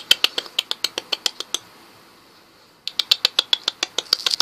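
Rapid, sharp rattling clicks from a small wire carry cage holding pet rats, about eight or nine a second. The first run lasts about a second and a half; after a short pause a second run starts about three seconds in.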